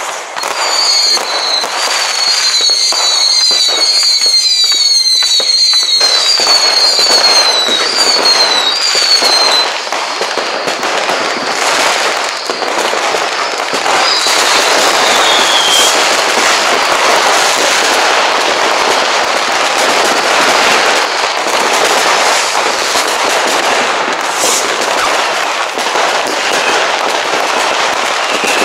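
Dense New Year's Eve fireworks: continuous bangs and crackling from many fireworks and firecrackers going off around the area. For about the first nine seconds a whistling firework gives a high whistle that falls again and again, and about halfway through a single whistle falls in pitch.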